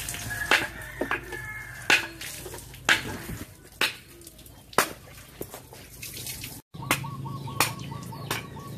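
Water trickling and splashing while a scalded pig carcass is washed and gutted on a wet table, with sharp knocks about once a second.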